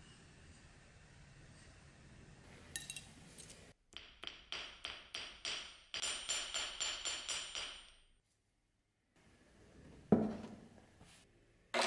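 Small hammer tapping a thin iron piece flat on a steel anvil: a run of quick, ringing metal taps, about three to four a second, that stops after some four seconds. A single loud thump follows about ten seconds in.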